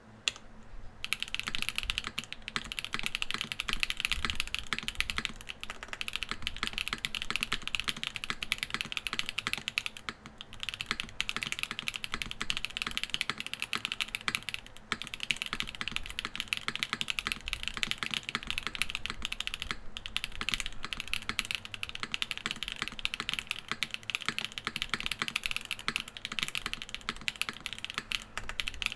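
Mechanical keyboard typing test on a PC Krush65 with Gateron Pro Ultra Glory Red switches and GMK keycaps: a fast, continuous run of key clacks that starts about a second in and pauses briefly a few times.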